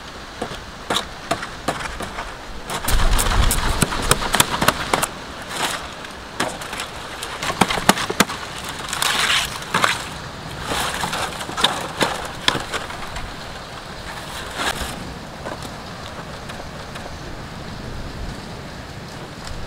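Footsteps crunching through dry leaf litter and scrub, with rustling palm fronds and irregular crackles and snaps of dry twigs. The crackling comes in clusters, busiest a few seconds in and again around the middle, then thins out near the end.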